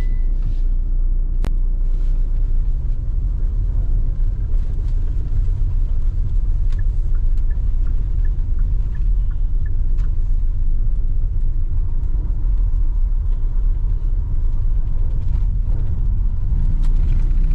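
Steady low rumble of a running vehicle, with a few faint clicks over it.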